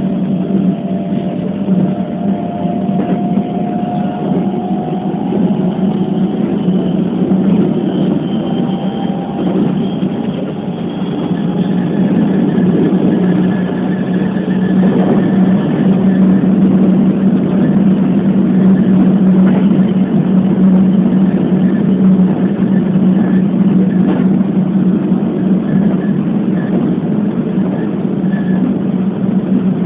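Keikyu New 1000 series electric train running at speed, heard from inside the front car: a steady rumble of wheels and running gear, with a faint motor whine that rises in pitch over the first few seconds. The running noise grows louder about halfway through.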